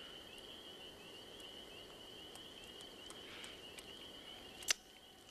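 Crickets chirping in a faint, steady high trill, with one sharp snap about four and a half seconds in.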